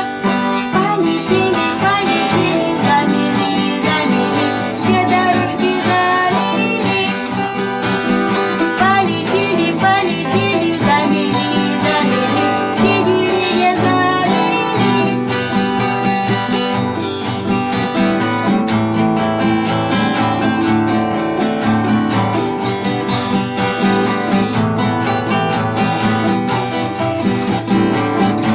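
Two acoustic guitars played together in a homemade song, with a woman singing along.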